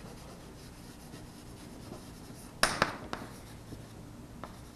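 Chalk writing on a blackboard: a few short, sharp taps and scrapes of the chalk, a cluster of them a little past halfway and a fainter one near the end, over a low steady hiss.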